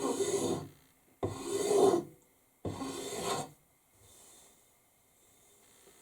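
Hand scraper drawn along a wooden axe handle in three long scraping strokes over the first three and a half seconds, taking down a thick spot to thin and feather the handle.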